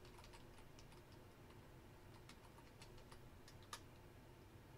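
Faint computer keyboard keystrokes: scattered soft key clicks, with one louder click about three-quarters of the way through.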